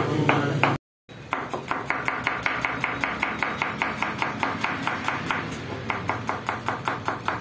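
Kitchen knife chopping vegetables on a plastic cutting board: a rapid, even run of chops, about five a second, with a brief dropout about a second in.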